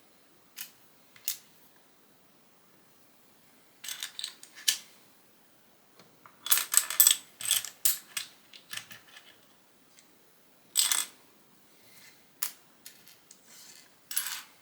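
Small plastic Lego pieces clicking and clattering in irregular bursts, with a dense rattle of pieces about halfway through and single sharp clicks between.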